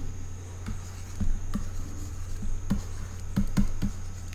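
Stylus tapping and clicking on a pen tablet while handwriting, about ten light irregular clicks, over a steady low electrical hum.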